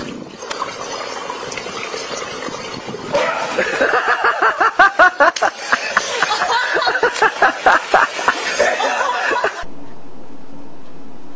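Swimming-pool water splashing and sloshing, then from about three seconds in a person laughs hard in quick, rapid bursts over the water. Near the end this gives way abruptly to a steady hiss.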